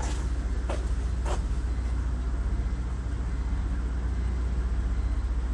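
Turbocharged BMW E46 engine idling with a steady low rumble, just after its turbo failed and sprayed oil and smoke.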